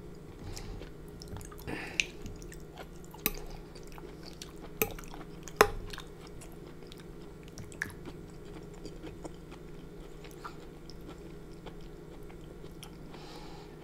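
Close-miked chewing of shrimp and onions in Alfredo sauce, with a few sharp wet clicks, the loudest about five and a half seconds in. A faint steady hum runs underneath.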